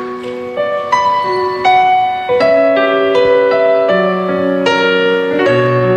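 Keyboard playing a slow piano melody in single held notes, the opening of a song performed live. Lower bass notes join about four seconds in, and a deeper one about a second and a half later.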